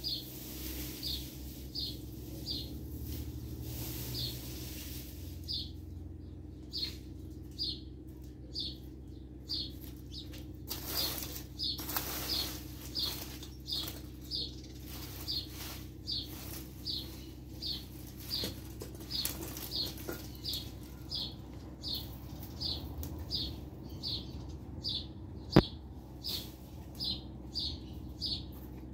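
A garden rake scraping over bare dirt in strokes, under a short high chirp that repeats evenly about one and a half times a second. A single sharp click sounds near the end.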